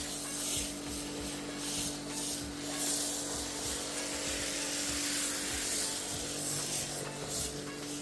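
Karcher K7 pressure washer running with a steady hum while an MJJC foam cannon sprays a hissing jet of snow foam, the hiss swelling and fading as the jet is swept.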